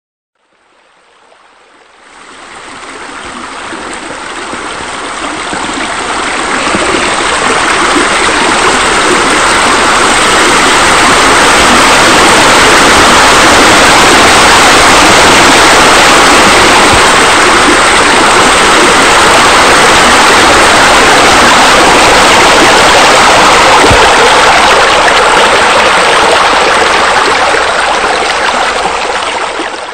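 Steady rushing, splashing water, like a fountain or spillover running, added as the sound of the pool's water features. It fades in over the first several seconds and cuts off suddenly at the end.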